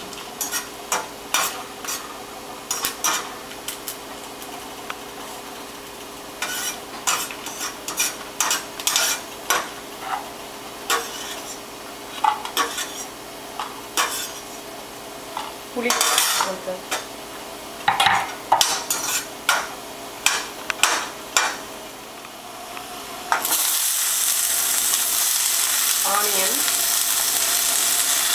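Dried red chillies frying in hot oil in a stainless steel pan, with a light sizzle under repeated sharp clicks and scrapes of a metal slotted spoon stirring against the pan. About 23 seconds in the sizzle jumps suddenly to a loud, steady hiss as chopped onion and tomato go into the hot oil.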